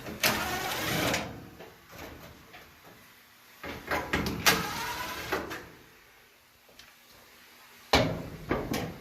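Parts of an opened-up dryer being handled: scraping and clunking of metal panels and parts in three spells of about a second each.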